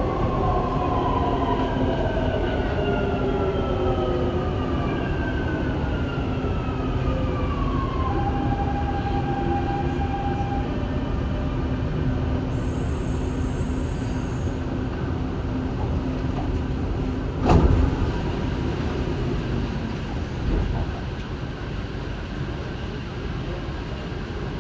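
Dubai Metro train running, its motor whine falling in pitch as it brakes into a station, over a steady rumble. A single sharp knock comes about seventeen seconds in, and the running noise drops lower near the end as the train comes to a stop.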